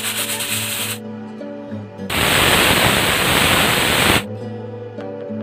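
Aluminium stovetop pressure cooker whistling: steam pressure lifts the whistle weight, first with a short fluttering hiss, then a loud steady hiss of about two seconds about halfway through. Each whistle marks a stage of cooking under pressure.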